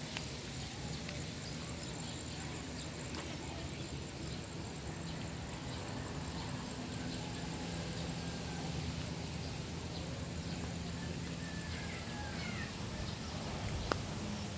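A steady low engine hum, with faint bird chirps and a single sharp click near the end.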